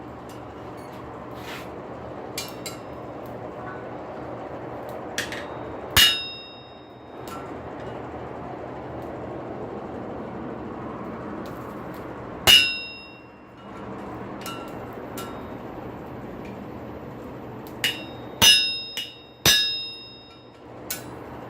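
A handful of hammer strikes ringing on a 211 lb solid steel anvil: one about 6 seconds in, another halfway through, and a quick cluster near the end. Each leaves a high, lingering ring. Under them is the steady rushing hiss of the forge's air blower.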